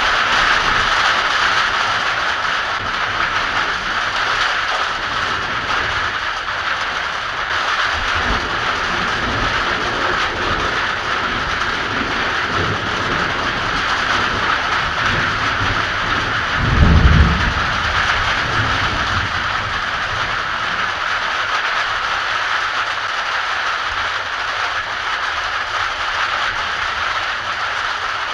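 Heavy rain falling steadily during a thunderstorm, with low rolls of thunder, the loudest about two-thirds of the way through.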